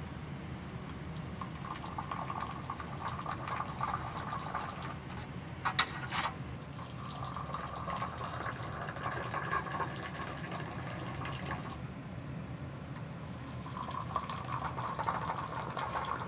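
Tea poured in a thin stream from a metal teapot into small glasses, a steady trickle in three long pours. A short sharp clatter about six seconds in, between the first two pours.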